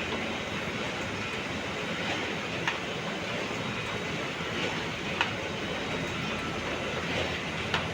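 Revoria digital production press running while printing on art paper: a steady mechanical whirr and hiss, with a sharp click about every two and a half seconds.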